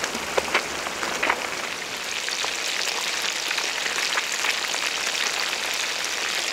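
Whole fish shallow-frying in hot oil in a pan: a steady sizzle with fine crackling, and a few louder pops in the first second and a half.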